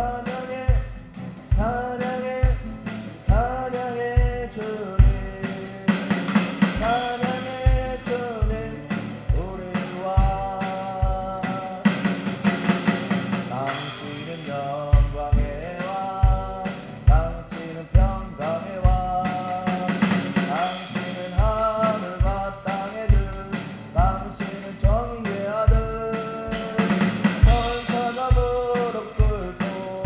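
A man singing while strumming an acoustic guitar, backed by a boy playing a steady beat on an electronic drum kit, with kick drum, snare and cymbals.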